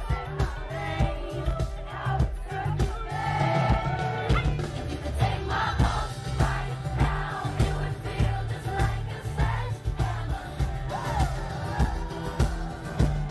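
Live pop concert heard from the audience: female vocal group singing into stage microphones over amplified dance-pop music with a steady, heavy bass beat.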